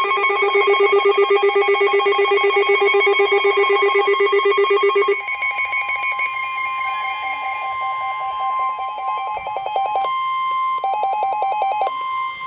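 Emergency Alert System alert tones. A rapidly warbling electronic alert of several tones at once runs for about five seconds. It gives way to a steady tone near 1 kHz over a fast-pulsing lower tone; the pulsing breaks off briefly about ten seconds in and resumes, and the tones stop near the end.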